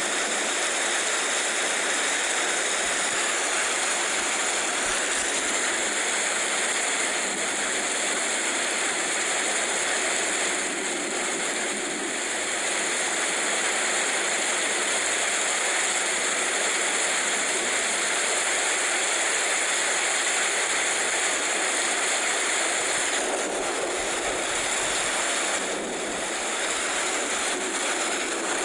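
Rain falling steadily, an even hiss with no rumble beneath it.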